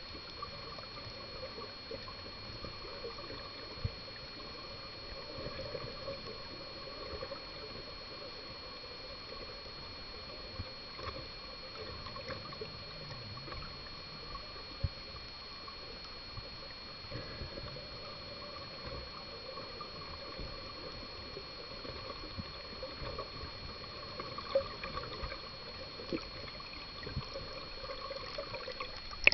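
Underwater ambience picked up by a submerged camera: a steady muffled hiss with faint crackling and scattered small ticks, and two thin steady tones. It grows a little busier near the end, with a few louder ticks and bubbling as a diver exhales bubbles close by.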